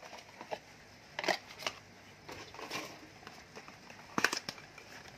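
Small cardboard box of an LED light bulb being handled and opened by hand: scattered papery rustles and sharp clicks of the card flaps, the loudest a little over a second in and again about four seconds in.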